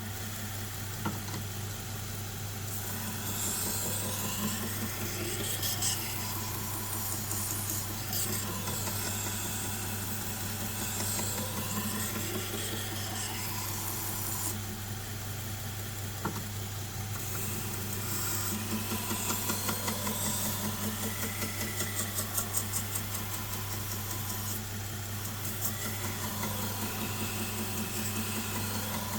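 Belt grinder motor running with a steady hum while a knife edge is drawn lightly across the abrasive belt, a rasping rub whose pitch rises and falls with each pass, taking off the burr.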